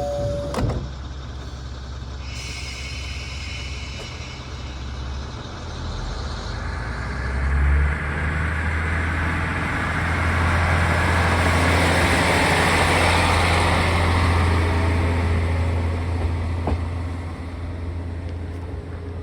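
Diesel train running: a low engine drone builds about eight seconds in, with a rushing noise that swells and then eases off. A click sounds at the start, and some high steady tones come in a couple of seconds later.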